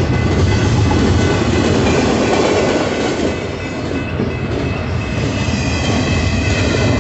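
Double-stack intermodal container train rolling through a grade crossing: a steady rumble of freight car wheels clattering over the rails. Over it rings the crossing's electronic bell.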